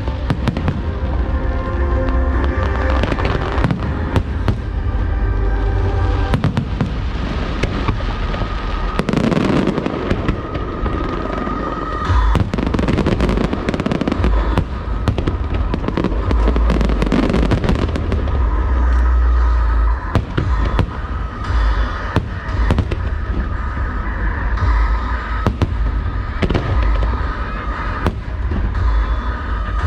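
Aerial fireworks bursting in rapid succession, with many sharp cracks and deep booms, over loud music played for the show.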